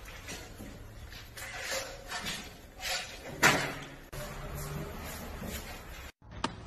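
A skateboard clattering and knocking on a concrete floor as a dog stands on it and rides it, a series of short knocks with the loudest about three and a half seconds in.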